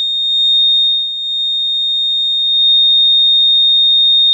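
Electronic buzzer of a homemade flood alarm sounding one continuous high-pitched tone. It signals that the water has reached the sensor's set level.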